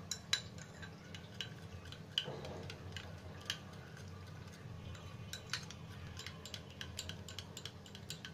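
Metal spoon stirring yeast into milk in a ceramic bowl, clinking irregularly against the bowl's side several times a second, over a steady low hum.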